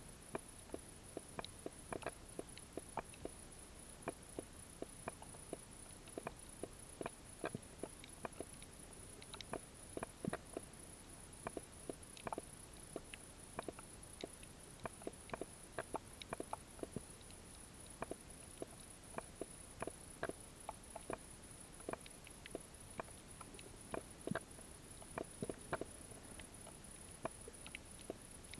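Irregular sharp clicks and snaps picked up underwater, several a second, over a faint steady high whine.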